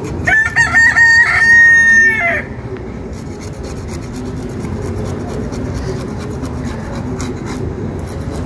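A rooster crowing once, about two seconds long: a few short broken notes, then one long held note that drops away at the end. After it, a steady background with faint scraping as a fish is scaled by knife.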